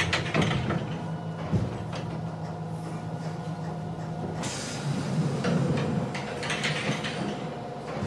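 Interior of a moving subway car: the train's steady low hum, with knocks and rattles in the first couple of seconds and a louder rush of running noise from about five to seven seconds in.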